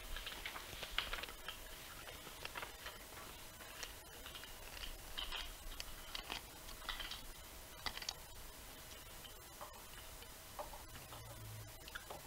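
Faint handling noises as a small cardboard spark plug box is opened and the new plug is slid out: scattered light clicks, taps and rustles of card.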